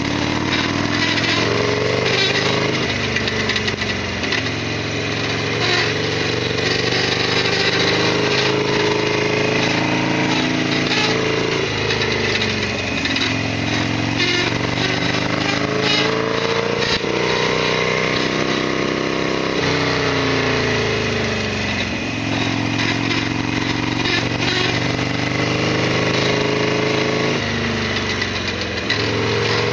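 Harley-Davidson Sportster XL1200R's air-cooled 1200 cc V-twin engine running under way. The engine note climbs slowly and then drops back sharply about four times, heard through a helmet-mounted camera's microphone with wind noise.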